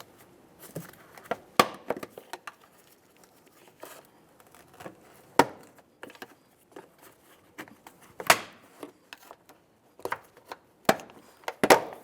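Plastic automotive trim panel being pried up with a plastic trim tool: scattered sharp clicks and snaps as its clips pop loose and the plastic flexes, the loudest about a second and a half in, about halfway, and near the end.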